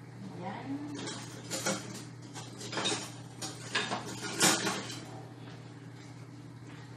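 Kitchen clatter: a run of clinks and knocks of dishes and utensils being handled, loudest about four and a half seconds in, then dying away.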